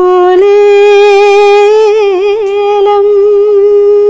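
A woman singing unaccompanied, holding one long note at a steady pitch with a brief wobble about two seconds in, opening a folk-style Malayalam film song.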